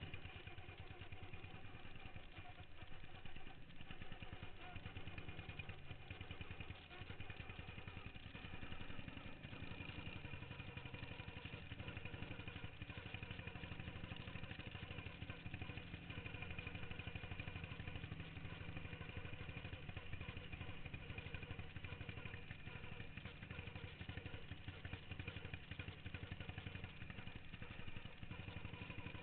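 Racing lawn mower engine running steadily, a fast, even firing pulse with no clear revving up or down.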